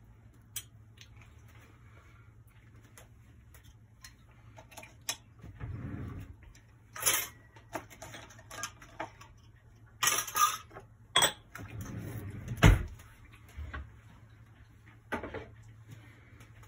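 Scattered clinks, knocks and clattering of dishes and utensils, loudest in a few sharp clatters in the second half, over a faint steady low hum.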